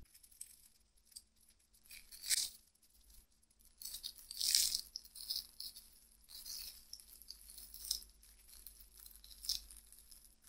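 Crisp breadcrumb crust of deep-fried bread pocket pies crackling and crunching in short, scattered bursts as the pies are pulled apart by hand.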